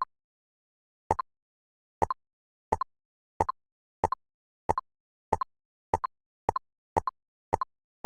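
Digital jigsaw puzzle piece-snap sound effect: short double clicks, one each time a piece locks into place. They start about a second apart and speed up to nearly two a second, with dead silence between.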